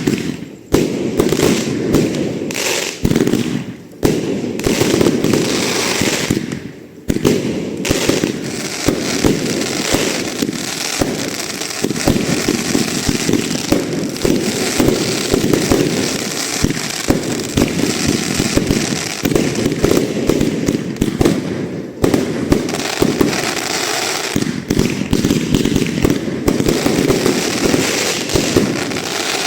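Fireworks display: a dense, continuous barrage of bangs and crackling, with a few brief lulls in the first seven seconds.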